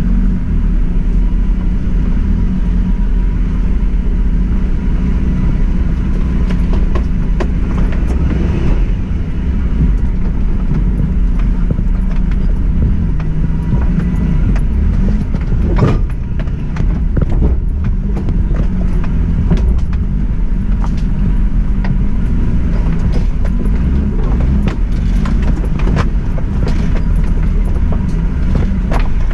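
Suzuki Jimny's engine running at low, steady revs as it crawls over a rough green lane, with frequent knocks and clicks from the rough track.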